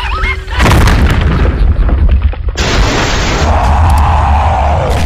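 Cartoon sound effect of the ground bursting open: a sudden deep boom about half a second in, then a continuing heavy rumble, with a rushing hiss joining about two and a half seconds in.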